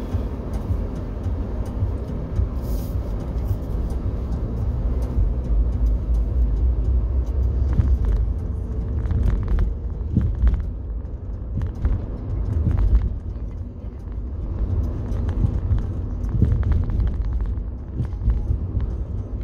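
Car driving, heard from inside the cabin: a steady low rumble of engine and tyre noise, with a few short knocks and rattles in the middle.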